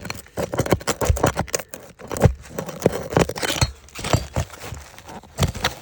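Asphalt roof shingle being worked loose and pulled free after its nails are removed: a run of irregular scrapes, crackles and taps.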